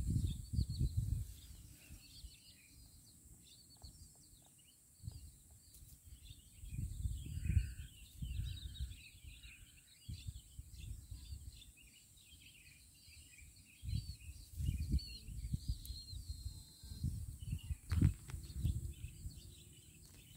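Small birds chirping and twittering in a rice-field setting, with a lower call repeated three times about a second apart near the middle. Low rumbling on the microphone comes and goes at the start, in the middle and through the last third.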